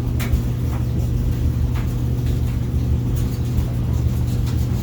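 A steady low hum, with a few faint short ticks over it.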